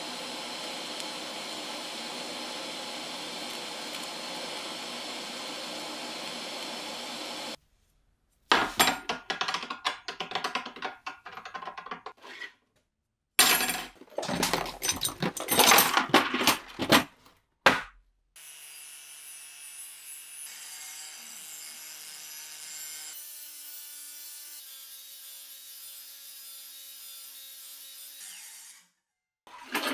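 Electric arc welding on steel hisses steadily for the first seven or so seconds and then stops. After a pause come bursts of loud, irregular metal scraping and rubbing strokes. From about halfway through, an angle grinder with a flap disc runs steadily against the edge of a steel file, its pitch shifting a few times, and it stops just before the end.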